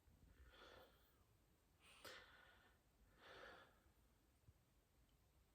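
Faint breathing, about four soft breaths, with a sharp hiccup about two seconds in.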